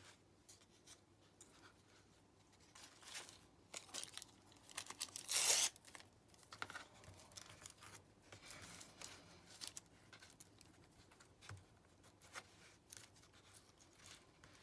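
Paper scraps being handled and rustled, with scattered small rustles and clicks and one louder half-second burst of paper noise about five seconds in.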